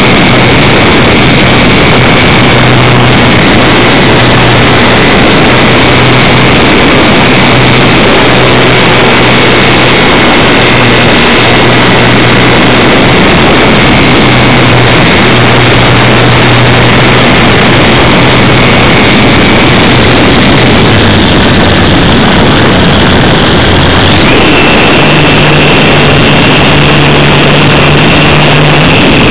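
Electric motor and propeller of a HobbyZone Super Cub RC plane picked up by a camera on the plane itself: a loud, steady rushing of prop and wind over the mic with a thin high motor whine. About 24 seconds in, the whine steps up to a higher pitch.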